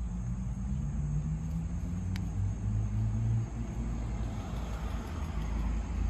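Low engine rumble with a slightly shifting pitch, and a single faint click about two seconds in.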